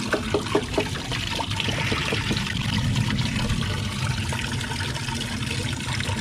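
Small artificial-rock patio waterfall: water pouring and trickling steadily, with short splashing plinks of falling drops in the first couple of seconds.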